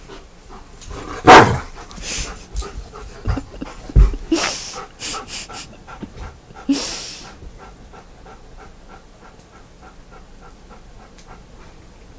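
German Shepherd panting in quick, even breaths through the second half. Before that, during play with a toy, there is a run of sharp noisy bursts and knocks, the loudest about a second in.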